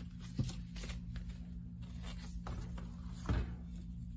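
Ribbon spools being handled on a cutting mat: a soft knock about half a second in and a louder one near the end as grosgrain ribbon is pulled off its spool, with faint rustling, over a steady low hum.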